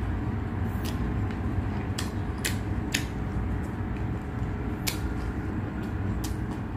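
Person eating: a handful of sharp, irregular clicks and crunches of chewing and utensils over a steady low background hum.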